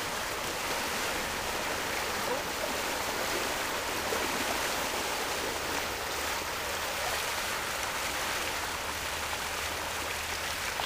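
Steady rush of shallow water flowing down a concrete dam spillway.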